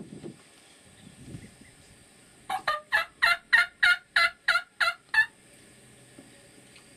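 Rio Grande wild turkey gobbler gobbling once: a fast string of about ten notes lasting under three seconds, starting about two and a half seconds in.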